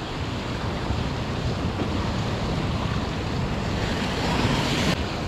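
Surf breaking and washing on a beach, with wind buffeting the microphone. A louder, hissier surge of surf builds about four seconds in and drops away just before the end.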